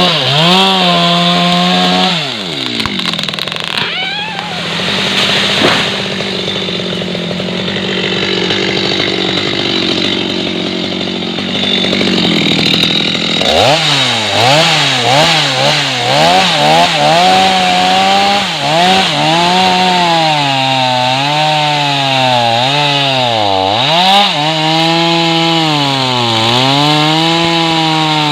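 Stihl MS 250 two-stroke chainsaw running at high revs and cutting wood. Its engine pitch drops sharply about two seconds in and runs lower and rougher for several seconds. About halfway through it picks up again and rises and falls repeatedly as the chain loads and unloads in the cut.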